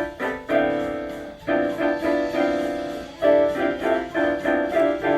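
Instrumental interlude of a children's gospel song: piano or electric keyboard playing a melody line over chords, notes struck one after another and dying away.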